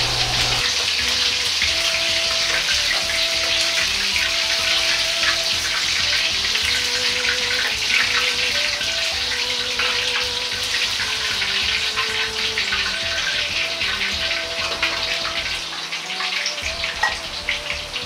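Hot oil in a wok sizzling and crackling after shrimp are oil-blanched and lifted out in a perforated strainer ladle, easing off a little near the end. Soft background music plays under it.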